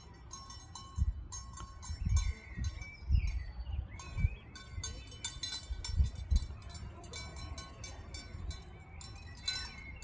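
Bells on grazing livestock ringing irregularly at several pitches, with dull low thumps now and then underneath.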